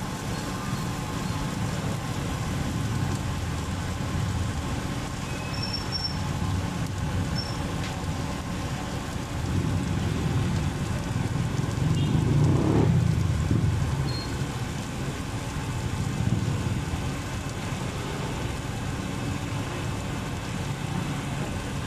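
Steady low rumble of street background noise, like passing road traffic, swelling louder for a few seconds in the middle.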